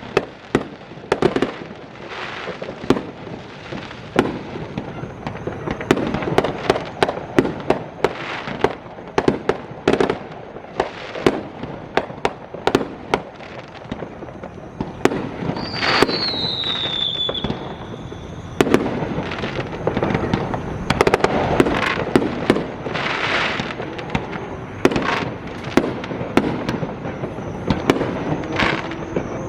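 Fireworks going off continuously: many sharp bangs and crackling pops in quick, irregular succession, with a high whistle falling in pitch about halfway through.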